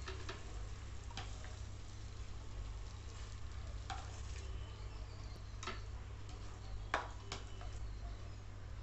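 A spatula scraping and knocking against a pan and a glass serving dish as paneer curry is spooned out: several separate clicks and scrapes, the sharpest about seven seconds in, over a steady low hum.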